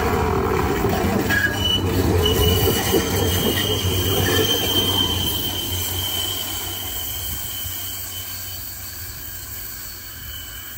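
Stadler Variobahn tram passing close by, its running rumble loud at first and fading away over the second half. A thin, steady, high-pitched wheel squeal from the curved track starts about a second and a half in and dies down as the tram moves off.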